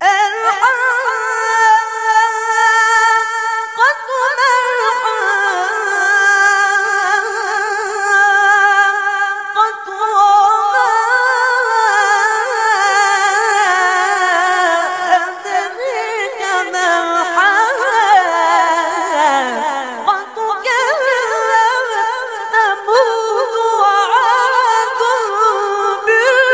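A boy's high voice chanting Quran recitation unaccompanied, in long, ornamented phrases whose pitch winds up and down, starting abruptly.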